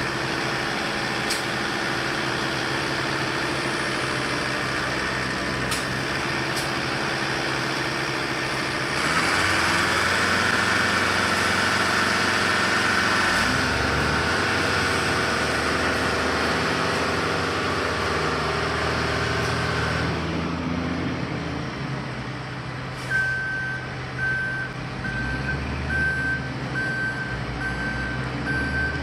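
Heavy road-construction machinery engines running steadily, growing louder about a third of the way in, with a reversing alarm beeping at an even pace near the end.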